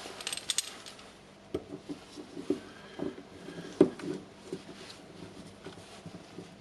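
Small metal parts clicking and knocking irregularly as a Makita rotary hammer's washer and retaining ring are worked down onto the tool holder, with one sharper knock a little under four seconds in.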